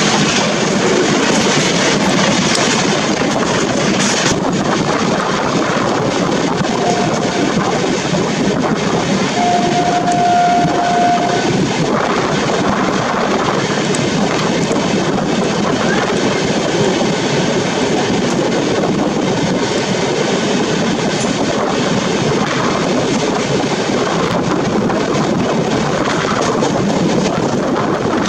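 Rajdhani Express passenger coach running along the track, heard from its doorway: a steady, loud noise of wheels on rails. A train horn sounds briefly about seven seconds in, then again for about two seconds around ten seconds in.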